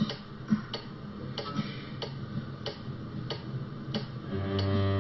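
A steady ticking, about one and a half ticks a second, in a TV drama soundtrack. A low sustained music chord swells in near the end.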